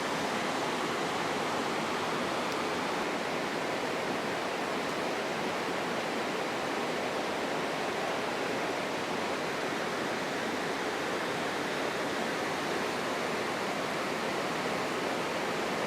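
Steady rush of fast-flowing water, an even roar with no change in level, cutting off abruptly at the end.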